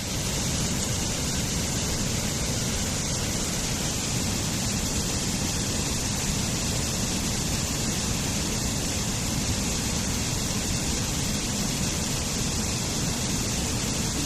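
Waterfall: falling water rushing in a steady, even hiss with no breaks.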